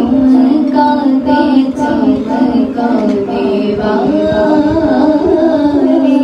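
A woman singing a naat, a devotional song in Urdu, into a microphone, in long held notes whose pitch wavers and bends.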